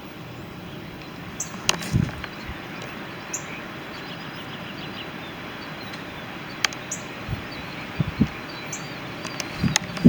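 Outdoor ambience: a steady background hiss, with a bird giving short, high chirps every couple of seconds and a few sharp clicks.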